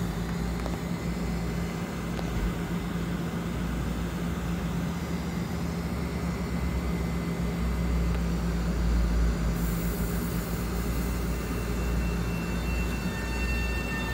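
Metro-North M7A electric multiple-unit train pulling out of the station: a steady low hum from its motors and undercarriage as it gathers speed. A thin high whine comes in near the end.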